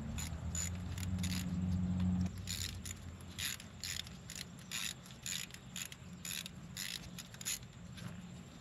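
A hand tool loosening the bolt that holds an ignition coil on a four-cylinder engine: a run of short metallic clicks, about two a second, starting about two and a half seconds in and stopping near the end. A low steady hum is heard for the first two seconds.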